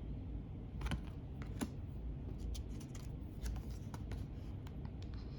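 Tarot cards with a smooth, plastic-like finish being handled and flipped through, making irregular small clicks and light scrapes.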